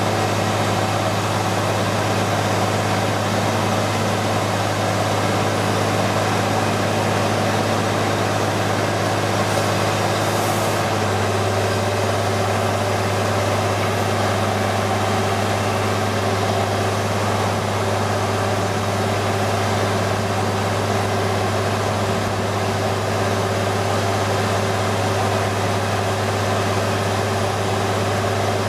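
Truck-mounted water well drilling rig running steadily with a deep engine hum; its note shifts slightly about eleven seconds in.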